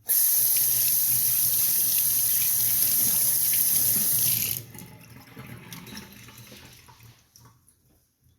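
Kitchen tap running hard into a sink, cut off about four and a half seconds in, followed by a few quieter clinks and splashes.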